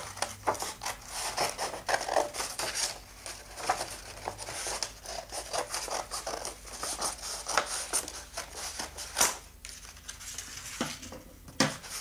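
Scissors cutting through a folded sheet of paper: an irregular run of short snips with paper rustling, and one sharper snip about nine seconds in.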